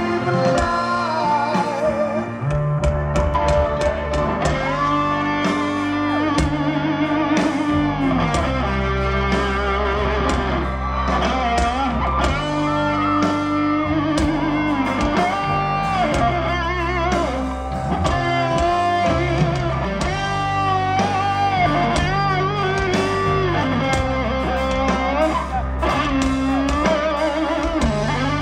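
Live rock band playing a slow song, led by an electric guitar melody with bends and vibrato over bass and drums.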